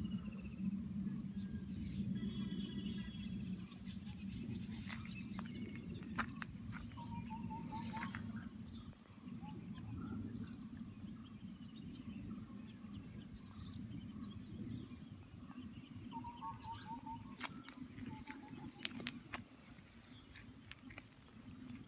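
Several birds calling with scattered short chirps; one call, a quick run of short notes on one pitch, comes twice. Under them runs a steady low rumble.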